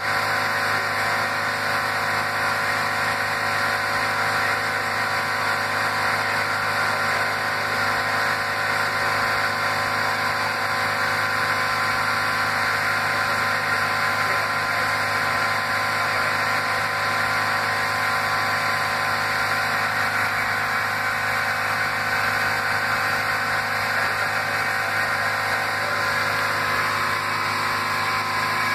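Steady hiss of compressed air from a spherical air bearing, with a steady hum of several tones underneath from the prototype's spinning reaction wheels.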